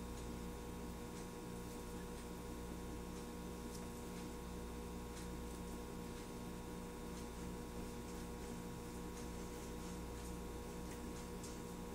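Steady electrical mains hum, with a few faint light clicks scattered through.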